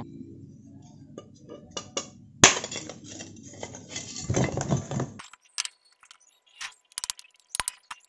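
Broken terracotta pot shards clinking and knocking together as they are handled and set down. There is one sharp knock about two and a half seconds in, and scattered light clicks near the end.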